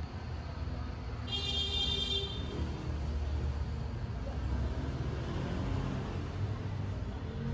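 Steady low rumble of passing road traffic, with one brief high-pitched squeal about a second and a half in.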